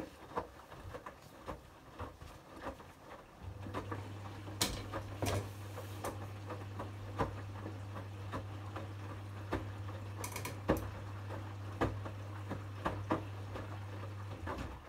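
Front-loading washing machine in its wash cycle: wet hoodies tumbling in the drum with soft, irregular tapping and clicking, and a steady low motor hum that comes in about three seconds in and stops just before the end.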